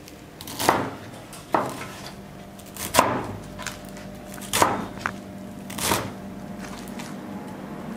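A large chef's knife chopping a pile of leafy greens on a cutting board: about six separate chops, a second or so apart.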